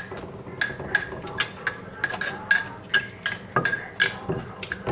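Metal spoon and wooden pestle knocking against a clay mortar as green papaya salad is mixed: a string of irregular sharp clinks, each with a short ring, and a heavier thud about three and a half seconds in.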